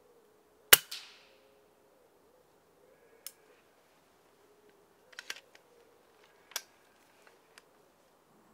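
A single shot from an FX Impact Mk II .22 pre-charged air rifle about a second in: a sharp, loud crack with a short decay and a second knock right behind it. Several fainter, sharp mechanical clicks follow over the next few seconds.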